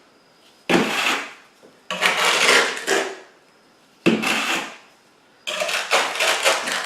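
Trowel scraping up excess thin-set mortar around freshly laid floor tile, in four strokes: two short ones that start sharply and fade, and two longer drawn-out scrapes.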